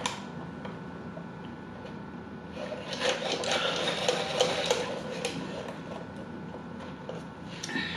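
Close-up mouth sounds of drinking soda through a straw from a fountain cup: sipping and swallowing, with a louder stretch of rapid crackling clicks from about three to five seconds in.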